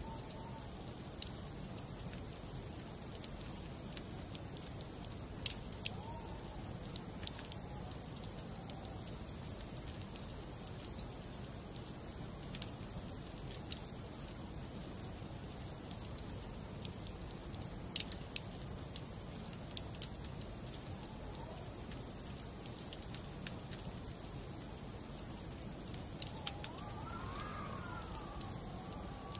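Wood fire burning in a fireplace, crackling steadily with irregular sharp pops and snaps over a soft hiss.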